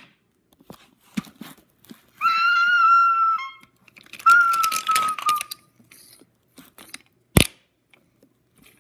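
Two long, high whistle-like notes imitating a train whistle, about two and four seconds in, amid light clicking of wooden toy train wheels on wooden track. A single sharp knock comes a little after seven seconds as a toy engine is knocked over.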